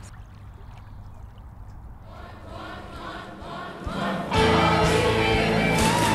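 Stage musical number: a large choir singing with band accompaniment, fading in from a low hum and swelling to full volume about four seconds in.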